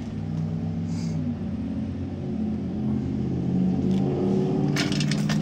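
An engine running at idle, its pitch easing up and down slightly.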